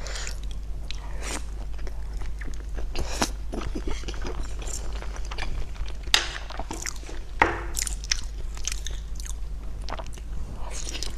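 Close-miked eating sounds: a person chewing and biting with irregular wet clicks and smacks, a few sharper ones near the middle, over a steady low hum.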